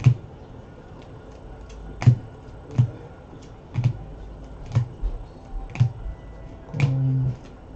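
Trading cards in hard plastic holders being flipped through by hand, each card knocking against the stack with a sharp plastic click, roughly once a second.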